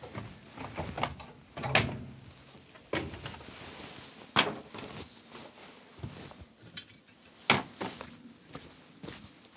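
Several sharp knocks and thuds, the loudest about two, four and a half and seven and a half seconds in, with quieter handling and scuffing sounds between them.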